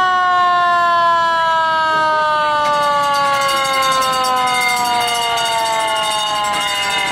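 Siren on a vintage red pickup-truck fire engine, sounding one long wail that falls slowly in pitch as it winds down.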